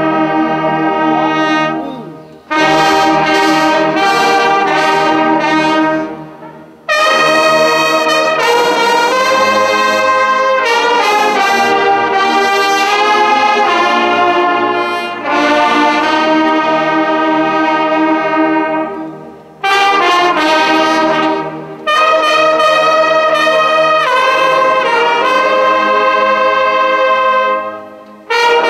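A large brass band of trumpets and trombones playing slow, held chords under a conductor. The phrases break off briefly every few seconds, with short gaps about a quarter, a third and near the end of the way through.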